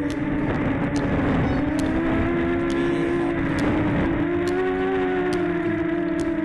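Storm 4v2 quadcopter's electric motors and propellers whining steadily in flight, several close tones weaving slightly up and down as the throttle shifts.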